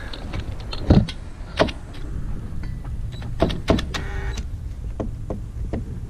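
Cordless drill motor whirring briefly about four seconds in, driving a screw through a railing's lower bracket. Several sharp knocks and clicks come before and around it.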